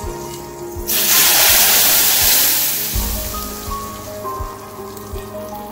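Hot tadka of oil with mustard seeds, dried red chillies and curry leaves poured into simmering sambar, hissing loudly as it hits the liquid. The hiss starts about a second in and dies away by about three seconds.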